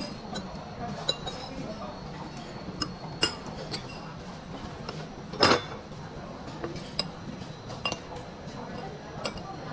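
Metal serving spoons clinking against ceramic condiment bowls as toppings are spooned onto a bowl of noodles: a dozen or so scattered light clinks, the loudest a sharper knock about five and a half seconds in.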